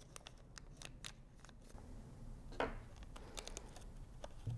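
Thin plastic bag crinkling faintly as it is wrapped and tucked by hand, in scattered light clicks and crackles, with one louder rustle about two and a half seconds in.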